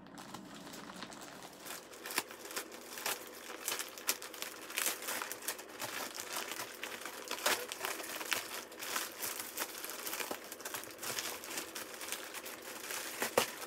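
Plastic courier mailer bags crinkling and rustling as they are handled and pulled open, with irregular sharp crackles, louder from about two seconds in.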